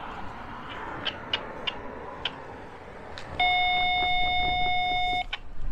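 Diesel freight locomotive's air horn giving one short blast of just under two seconds, a steady chord that starts about three and a half seconds in and cuts off sharply. Before it, a low rumble of idling locomotives with a few sharp clicks.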